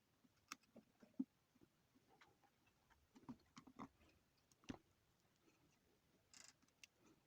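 Near silence with faint, scattered ticks and taps from desoldering work on a circuit board, and a short soft hiss near the end.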